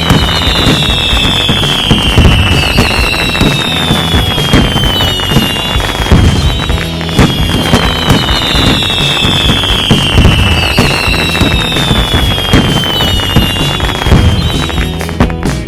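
Cartoon firework sound effects: whistling rockets, each whistle falling in pitch, repeating about every two seconds, with constant crackling and popping. Background music plays underneath.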